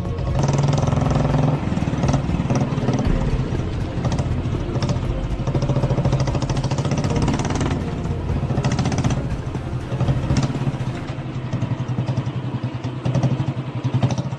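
Motorcycle engine running steadily as the bike rides along a road, with a steady low engine note and road noise.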